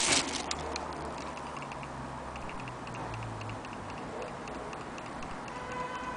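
Antique French clock movement's escapement ticking rapidly and evenly as the movement runs in the hand, after a brief burst of handling clatter at the start. A steady ringing tone joins near the end.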